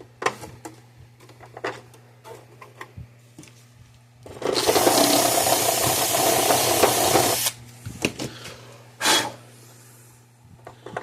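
A power drill runs for about three seconds, then gives a short burst a little later, amid clicks and knocks of parts being handled.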